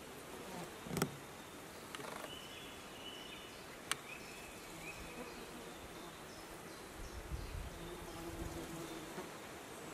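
Outdoor summer ambience with flying insects buzzing, broken by a thump about a second in and a sharp click near four seconds; a low rumble comes in late.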